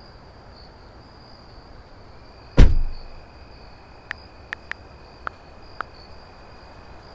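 Crickets chirping steadily, with one heavy thud of a car door shutting about two and a half seconds in, then five short, sharp clicks of a phone being typed on.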